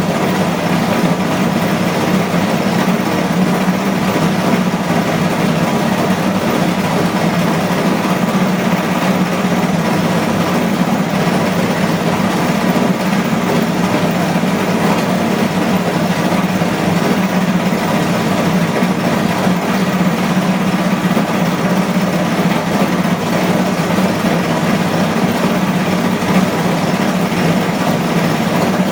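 Washing machine on its spin cycle, running at a steady speed with an even hum and whirr.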